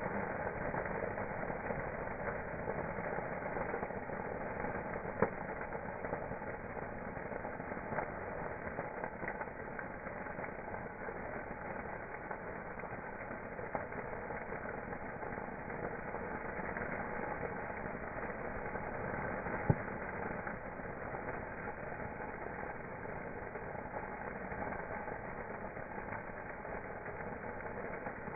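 Campfire burning with a steady rushing noise, broken by three sharp pops of the wood.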